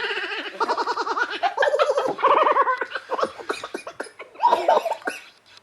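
Laughter: runs of rapid, pitched ha-ha pulses, broken by short pauses about one and a half seconds and four seconds in.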